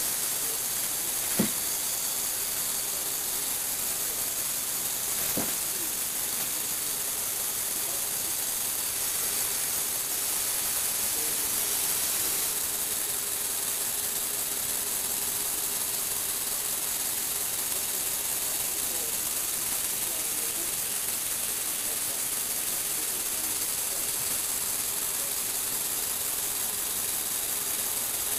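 Motor-driven Lego Technic plastic gear mechanism running steadily, a continuous whir and hiss as it tilts and turns its platform. A sharp click comes about a second and a half in, and a fainter one about five seconds in.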